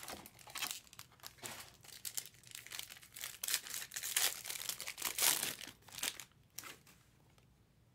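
Foil trading-card pack being torn open and its wrapper crinkled, in a run of irregular sharp crackles that die away about seven seconds in.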